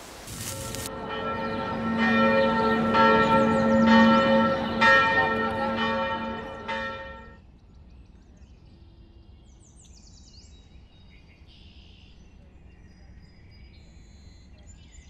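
A church bell tolling, struck about once a second with long ringing tones, the ringing dying away about seven and a half seconds in. Afterwards only a faint background with a few faint high chirps.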